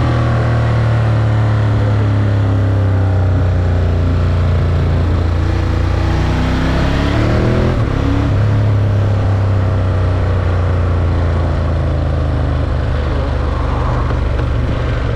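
Ducati Monster 1200 S L-twin engine running under way, its note steady at first. Then the revs climb in the middle and drop back sharply about eight seconds in, before it settles again.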